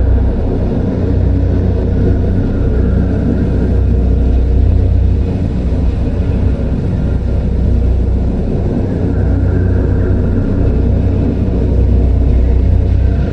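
Loud, steady deep rumbling drone of a horror-style ambience, with a faint higher tone swelling in and out twice.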